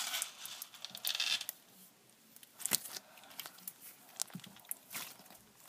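Slime being poked and squeezed by fingers close to the microphone, giving irregular small clicks, pops and crinkly rustles.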